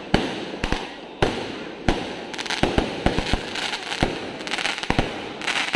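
Mercun merdeka multi-shot aerial fireworks going off: a quick, irregular string of about a dozen sharp bangs as the shells burst, with crackling stars hissing between them.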